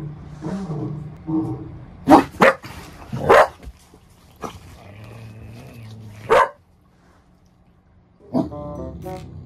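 A dog grumbling in a low, wavering voice at first, then giving a few loud, short barks, the last about six and a half seconds in.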